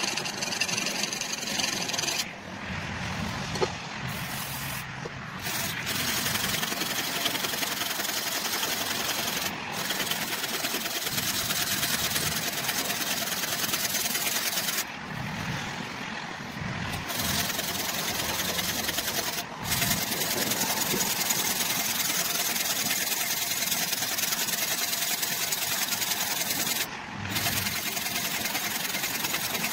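Hand-sanding rust off a steel hatchet head with a wooden sanding block: fast back-and-forth rasping strokes of abrasive on metal, stopping briefly several times.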